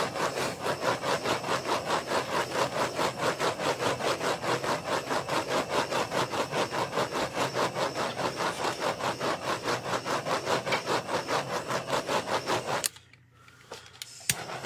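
Handheld butane torch running over the wet resin carrier layer on the tumbler, a loud rasping noise that pulses about five or six times a second. Used to get movement out of the carrier layer. It cuts off about thirteen seconds in, followed by a couple of faint clicks.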